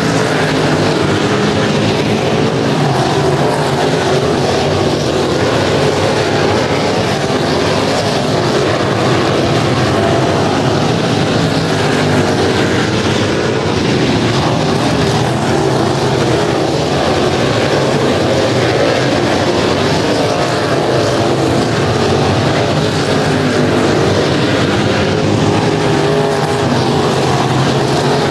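A field of open-wheel dirt-track race cars running laps, their engines loud and continuous as the pack circles the oval.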